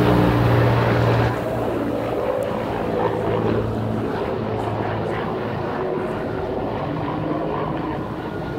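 Large helicopter flying overhead: a steady engine-and-rotor drone, loudest in the first second and a half and then easing off a little.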